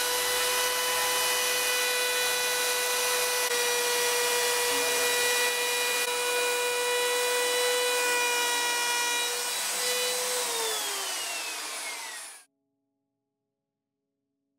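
Bosch 1200 W plunge router running and cutting along the edge of a solid pine top, a steady high whine with a hiss of cutting. About ten seconds in it is switched off and the whine falls in pitch as the motor spins down, stopping about two seconds later.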